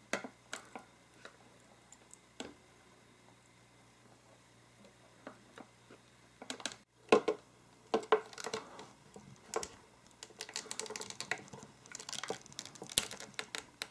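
Small plastic clicks and scratchy scraping as fingers pry and peel a rubber cover off the plastic arm of bone conduction glasses. A few isolated clicks come first, then after a pause the clicking and scraping grows denser and busier.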